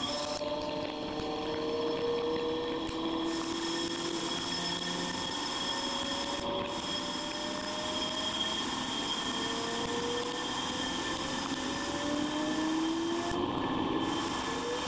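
A Mazak Integrex mill-turn machine turning the face of a spinning flange part under flood coolant: a steady hiss of cutting and coolant spray over the spindle's running whine, whose tones glide slowly up in pitch.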